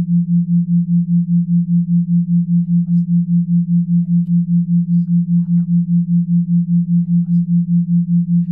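A low electronic sine tone that pulses on and off evenly about four times a second: a pulsed (isochronic-style) hypnosis tone.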